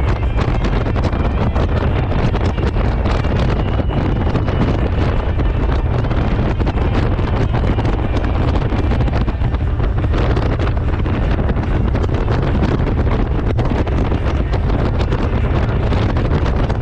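Heavy wind buffeting the microphone on a moving Honda Gold Wing motorcycle: a loud, steady rush with a deep rumbling flutter and no break.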